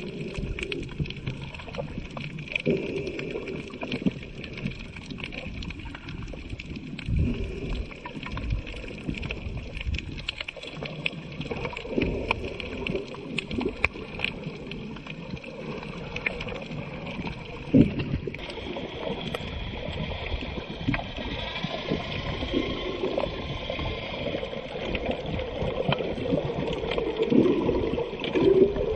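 Water heard underwater through a snorkeler's camera housing: a muffled, uneven wash and gurgle with scattered clicks and knocks, one louder knock a little past halfway.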